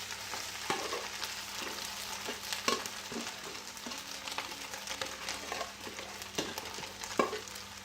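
Rice frying in oil in a hot stainless steel pan: a steady sizzle, with irregular scrapes and knocks of a utensil stirring it against the pan.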